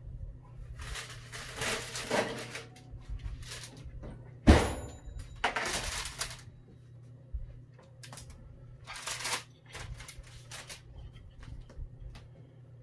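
Kitchen handling sounds as a baking tray of roasted acorn squash halves comes out of the oven onto a cutting board: parchment paper and a cloth towel rustling, one sharp knock about four and a half seconds in, and a few light clicks and taps, over a steady low hum.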